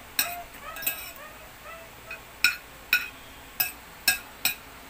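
Metal fork and spoon clinking and scraping against a ceramic plate while eating, about seven sharp separate clinks.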